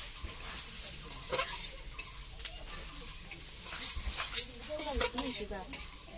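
Metal spatula stirring and scraping grated coconut and semolina around a wok over a fire, with a steady sizzle. Scattered scrapes and clinks against the pan stand out from the hiss.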